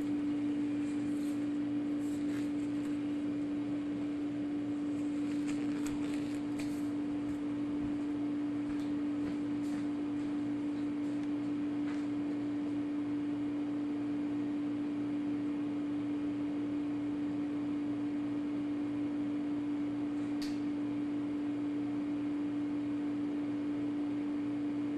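A single steady electronic tone held without any change in pitch or loudness, with a few faint clicks in the first half and one more later on.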